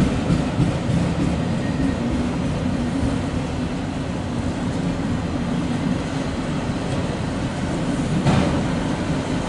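Empty autorack freight cars rolling past close by: a steady rumble of steel wheels on rail. A few wheel clacks come in the first second, and a louder clank a little after eight seconds.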